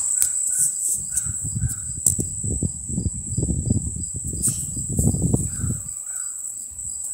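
Insects chirping in a regular pulse, about three chirps a second, over a steady high-pitched hum. Low rumbling noise on the microphone runs from about half a second in until near six seconds and is the loudest sound.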